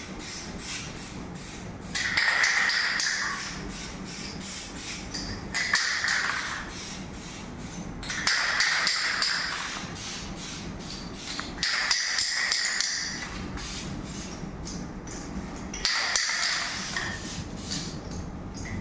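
Aerosol can of white contrast paint spraying in short hissing bursts, about five of them lasting one to two seconds each, as a white background coat for magnetic particle testing. Short clicks sound between the bursts.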